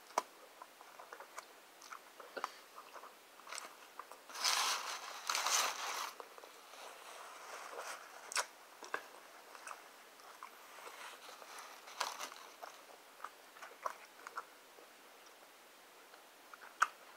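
A person biting and chewing a soft flour-tortilla wrap close to the microphone, with scattered small mouth clicks. A louder burst of paper rustling comes about four to six seconds in.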